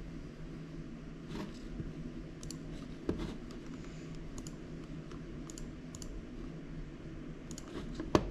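Sparse, irregular clicks of a computer keyboard in use, over a low steady hum, with a louder knock about three seconds in and a sharper one near the end.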